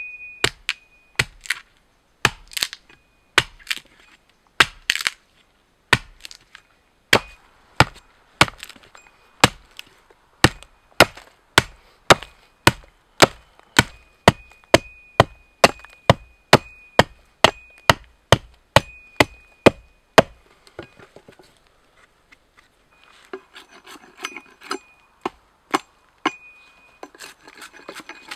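Russian ZIK axe chopping into a log: sharp strikes, about one a second at first and then quicker, around two a second, stopping about two thirds of the way in. After a short pause come quieter scraping and shaving sounds as the axe carves a stick.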